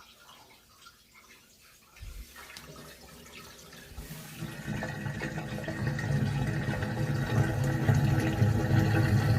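Washing machine running water: quiet at first, then about two seconds in the water starts with a sudden rush that builds over a few seconds to a steady loud flow with a humming tone in it.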